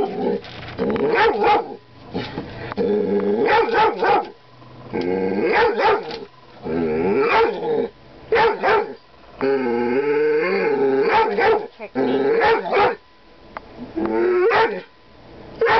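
Young dog barking at his own reflection in a mirror: a series of loud, drawn-out, wavering barks and yowls, one every second or two, with short pauses between.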